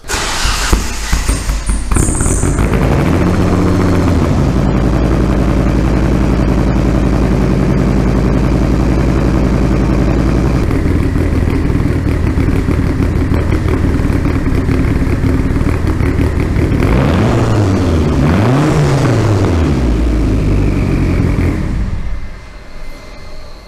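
1991 Mitsubishi Galant VR4's turbocharged 4G63 inline-four starting up and idling through a custom slip-on race exhaust. It blips once a few seconds in and revs twice in quick succession near the end, then shuts off.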